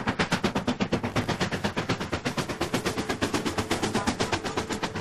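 Stanier 'Black Five' two-cylinder steam locomotive working a train at speed: rapid, even exhaust beats, about nine a second. A faint steady hum joins about three seconds in.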